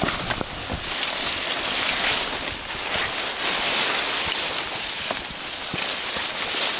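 Leafy branches and brush swishing against rain jackets and a nylon pack rain cover as hikers push through dense wet undergrowth, a hiss that swells and fades again and again, with a few soft knocks of footfalls.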